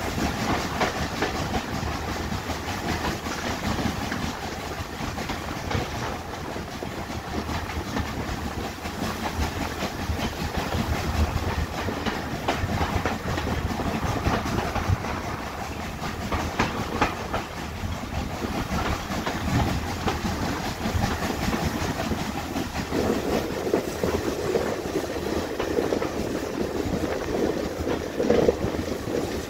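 Steam-hauled passenger train heard from an open carriage window while running: a steady rush of wind and running gear, with the wheels clicking over rail joints. The rush grows deeper and stronger in the last several seconds.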